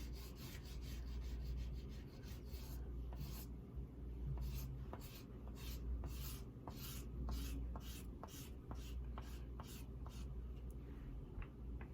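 Oil pastel rubbed back and forth across sketchbook paper in short, regular scratchy strokes, about two to three a second, over a low steady hum.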